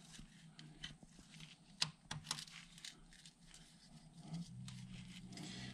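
Faint clicks and scrapes of a T-handle socket wrench turning an oil drain plug, snugged down lightly onto a new copper crush washer. A low steady hum joins about four seconds in.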